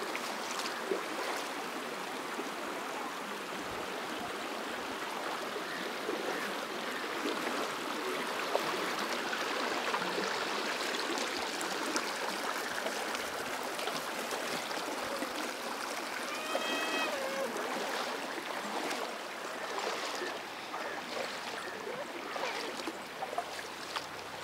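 Shalmala river water running steadily over its rocky bed: a continuous, even stream sound. A short pitched call is heard once, about two-thirds of the way through.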